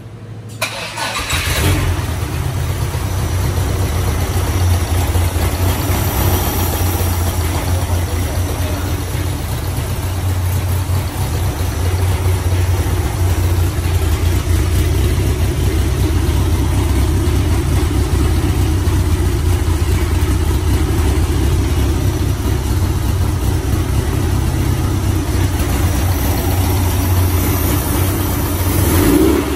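Air-cooled 1914 cc VW Beetle flat-four, fitted with a single Solex 37 mm carburettor and a camshaft made for single-carb use, starting about a second in and then running steadily. Near the end it is revved briefly.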